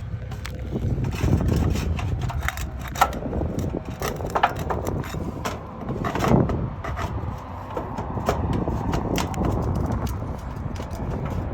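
Irregular clicks, scrapes and knocks of a hand tool working a roofing nail loose from under the shingles beside a roof vent, with a few sharper taps.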